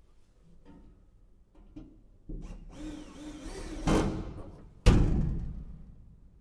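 Cordless drill-driver running for about two and a half seconds, its motor pitch wavering as it drives a screw into a bracket in a sheet-metal cabinet. Near the end comes a single loud knock that rings briefly.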